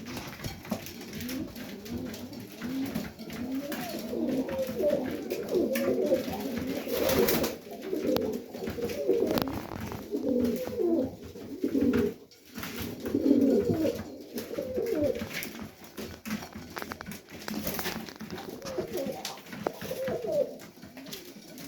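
Many pigeons cooing together, with overlapping low wavering calls and scattered wing flutters and shuffling, in an enclosed pigeon loft.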